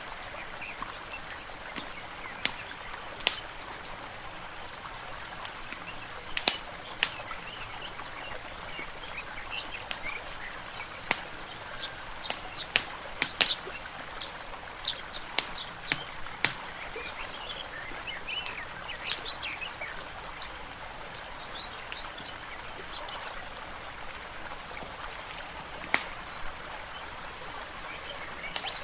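Layered forest-and-fireplace ambience: birds chirping and water trickling over a steady hiss, with sharp crackling pops from a wood fire every few seconds. The bird calls are busiest in the middle.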